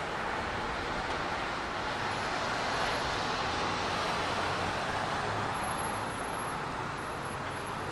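Road traffic noise, a steady rush that swells slowly to a peak about halfway through and eases off, with a faint low engine hum under it.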